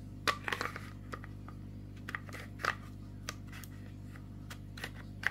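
Scattered light clicks and knocks of an Umarex HDP .50 pistol's parts being handled and fitted together, the upper assembly meeting the frame, over a steady low hum.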